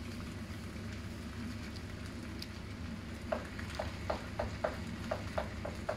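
Metal spatula clacking and scraping against a stainless steel wok while stir-frying noodles: a run of about nine quick clacks, roughly three a second, starting about halfway in. A steady low background hum runs underneath.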